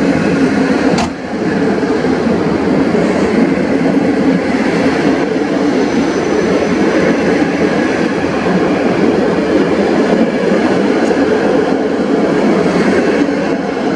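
Passenger coaches of a passing express train rolling by at speed, a steady rumble of steel wheels on the rails, with one sharp click about a second in.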